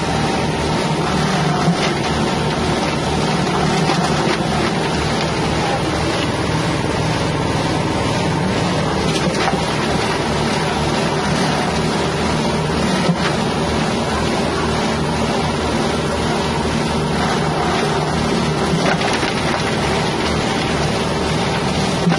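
Engine-driven grinding mill for wet spices such as galangal, running steadily under load, with a couple of short knocks as pieces go through the grinding chamber.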